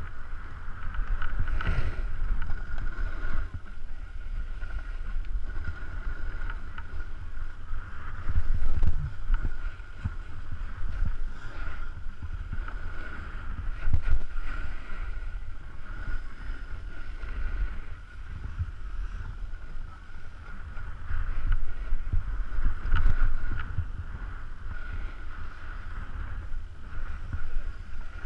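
Wind buffeting the microphone: a low rumble that swells and fades, loudest in a few gusts. A faint steady high whine runs under it.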